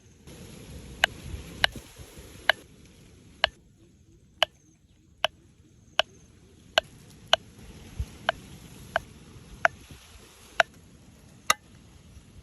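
A series of about fifteen sharp, separate knocks, spaced unevenly about one every half to one second, some louder than others.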